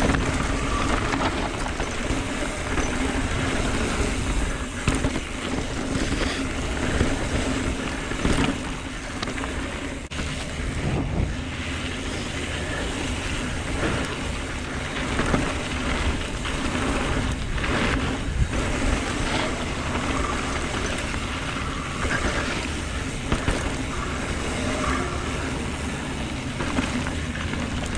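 Mountain bike riding down a dirt trail, heard from a bike- or rider-mounted action camera. Wind buffets the microphone over steady tyre rumble, with occasional knocks from bumps in the trail.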